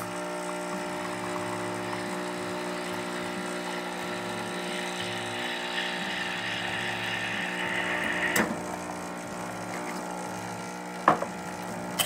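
Nuova Simonelli Oscar II espresso machine's vibratory pump humming steadily as it pulls an espresso shot, while the steam wand hisses into a milk pitcher. The hiss stops with a click about eight seconds in, and there is a sharp knock near the end.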